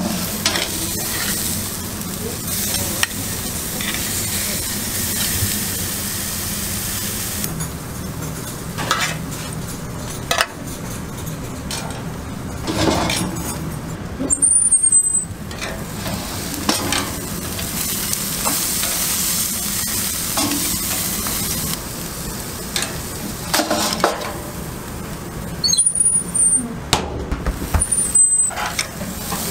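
T-bone steaks sizzling over charcoal on a grill grate, with a steady hiss and scattered crackles. Occasional knocks and short squeaks come from the metal grill door and tongs, mostly around the middle and near the end.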